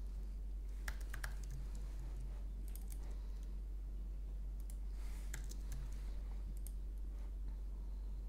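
Computer keyboard typing in short, sparse runs of keystrokes with pauses between them, over a steady low hum.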